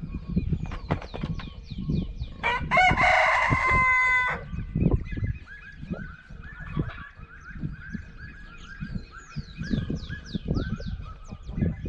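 A rooster crows once, a loud call of about two seconds starting a couple of seconds in. Small birds chirp repeatedly in short falling notes throughout.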